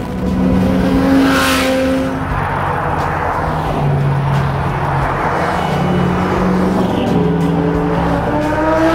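Sports cars driving past at speed, engine and tyre noise with one car whooshing close by about a second in. Background music with long held notes plays over it.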